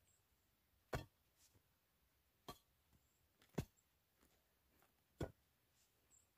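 Square-bladed shovel chopping down into a pile of dug-up sod clumps: four separate sharp strikes, a second or more apart, with near silence between.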